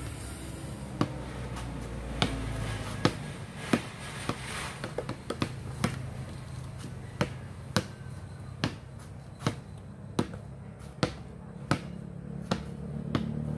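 A basketball dribbled on a concrete slab: sharp bounces, a few quick uneven ones about four to five seconds in, then a steady rhythm of a bounce roughly every three-quarters of a second.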